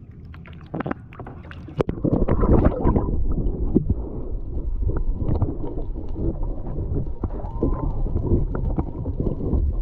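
Water sloshing and splashing, with a few knocks in the first two seconds, then a muffled, low rumbling wash of water heard under water from about two seconds in.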